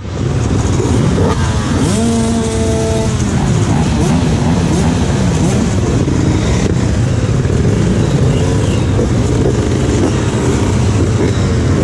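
Many supermoto and dirt-bike engines running together at idle, with throttles blipped over the top. About a second in, one engine is revved up and held at a steady high rev for about a second before dropping back. Shorter revs then rise and fall throughout.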